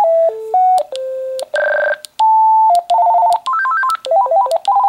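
An AT&T CL82 DECT 6.0 cordless phone handset playing ringer tone previews through its speaker. Short electronic melodies of stepping beeps, one tune giving way to another every second or so as the tone list is scrolled.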